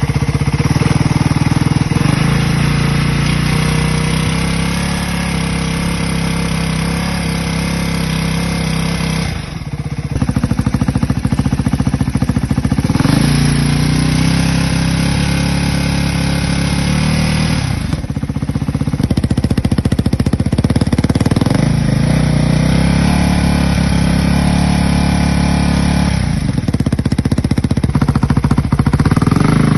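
Ducati Hypermotard 698 Mono's single-cylinder engine held steady at about 4,000–5,000 rpm, heard through several aftermarket exhausts in turn. The exhaust tone changes at cuts about 9, 18 and 26 seconds in.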